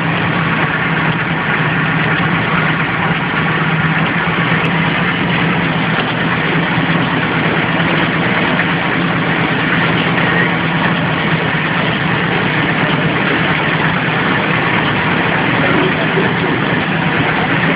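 Horizontal flow-wrap packing machine with a rotary end-sealer running steadily: a continuous mechanical noise with a low hum under it.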